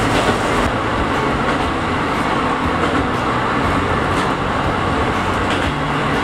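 KiHa 183 series diesel express railcar running at speed through a tunnel, heard from its front observation seat: a loud, steady rumble of wheels and engine under a low hum, closed in by the tunnel walls. It eases slightly near the end as the train comes out into the open.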